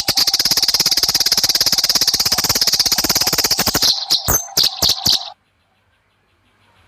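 Eurasian tree sparrows chattering in a fight: a loud, rapid, harsh rattle of notes for about four seconds, then a few separate notes, stopping about five seconds in.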